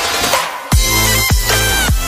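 Electronic dance music: after a brief dip, a heavy bass drop comes in under a second in, followed by deep bass hits that fall in pitch about every half-second.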